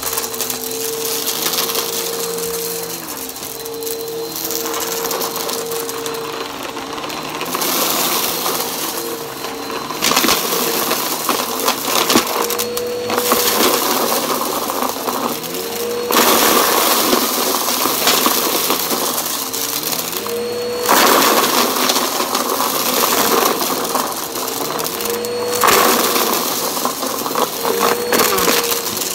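Bissell PowerForce Helix Turbo upright vacuum running on carpet, its motor giving a steady whine with a rushing suction noise. Several times the rushing noise swells and the whine briefly dips in pitch as the head is pushed forward over the carpet and onto a pile of lint and debris.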